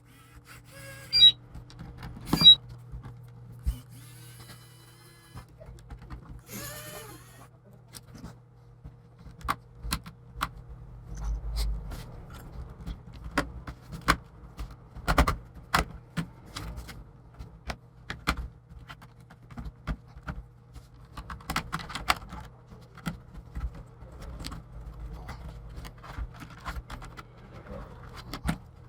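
Plastic laptop case being taken apart by hand: a string of scattered clicks, taps and small scrapes from tools, screws and plastic clips, with two sharp clicks near the start. A steady low hum runs underneath.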